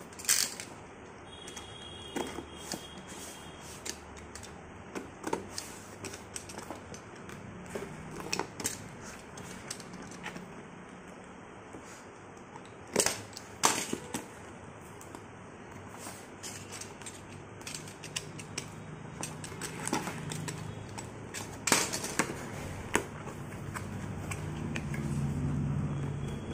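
Cardboard shipping box being opened by hand: a utility knife cutting the packing tape, the tape pulled away and the cardboard flaps bent open, heard as scattered sharp clicks, scrapes and crackles.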